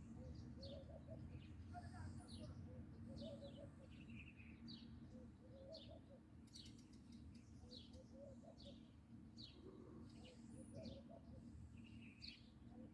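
Small birds chirping faintly: short, high, falling chirps repeated about once or twice a second, over a low steady hum.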